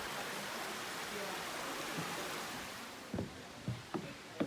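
Steady rushing of flowing stream water, which fades about three seconds in, followed by a few light clicks.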